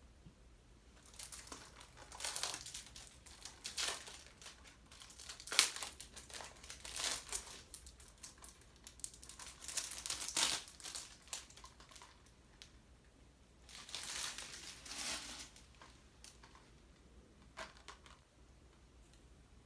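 Plastic shrink wrap being torn and crinkled off a Blu-ray case, in irregular bursts of rustling.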